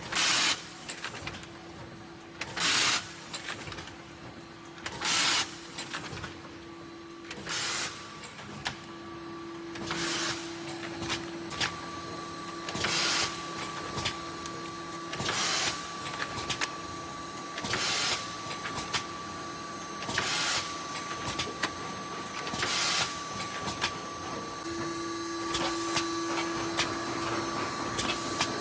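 HC-180NG horizontal flow-wrap packaging machine running its wrapping cycle: a short burst of noise about every two and a half seconds over a steady machine hum with a higher whine.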